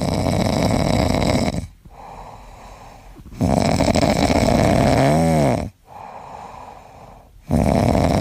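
Orange tabby cat snoring in its sleep: three long, loud snores about four seconds apart, with softer breaths between them. The middle snore ends in a brief squeak that rises and falls in pitch.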